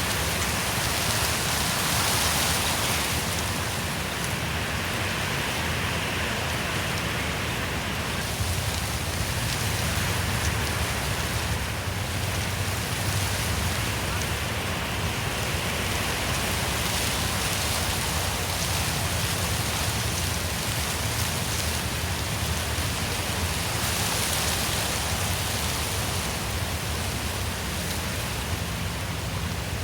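Wind blowing through forest trees: a steady rushing hiss of moving leaves and branches, with the high hiss swelling and easing every several seconds.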